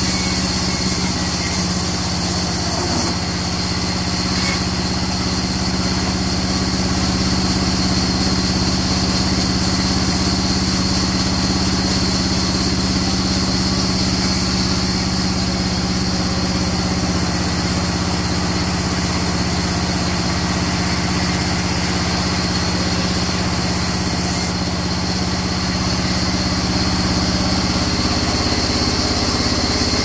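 A sawmill band saw running steadily while ripping a long mahogany plank: a constant mechanical hum under a continuous high sawing hiss.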